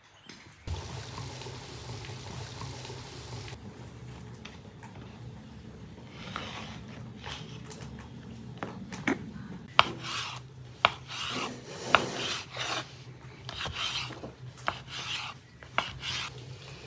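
Knife sawing through a crusty loaf of bread on a wooden cutting board: repeated rasping strokes through the crust, with a sharp tap of the blade on the board at the end of each slice, about one a second. A low steady hum runs underneath.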